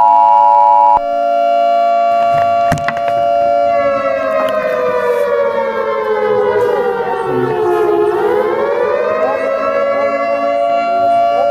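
Civil defense siren sounding a steady wail whose pitch, about four seconds in, slowly falls for about four seconds and then climbs back to its first pitch. Over the siren's opening, the two-tone Emergency Alert System attention signal sounds and cuts off suddenly about a second in.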